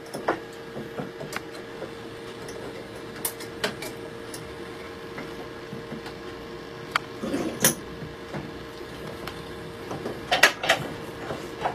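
Small metallic clicks and taps of a steel wire being bent by hand into a hook while clamped in a small bench vise, sparse at first with two busier clusters about seven seconds in and near the end, over a steady faint hum.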